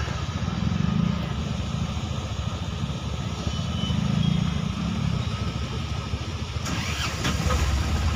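Motorcycle and vehicle engines idling in a queue of stopped traffic, a steady low rumble, with a brief louder noise about seven seconds in and a deeper engine rumble rising just before the end.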